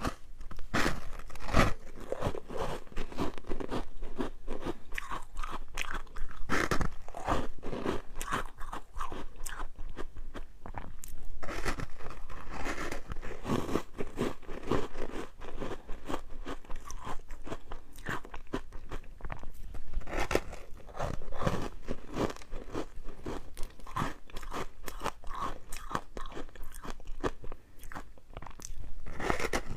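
Ice being bitten and chewed, a steady run of crisp crunches and cracks.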